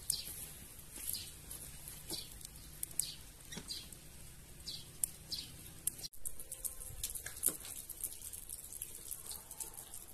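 Small birds chirping: short descending chirps repeated about once a second, with scattered faint clicks.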